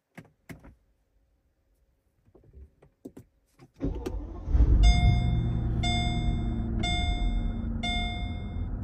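A few clicks, then the 2006 Mercedes-Benz SL600's M275 twin-turbo V12 cranks and fires about four seconds in, flaring briefly before settling into a steady idle. Over the idle a seatbelt warning chime rings about once a second.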